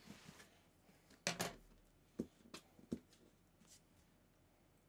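Cardboard shipping box being opened with a box cutter: a short scrape about a second and a half in, the loudest sound, then several light taps and knocks of hands and blade on the cardboard.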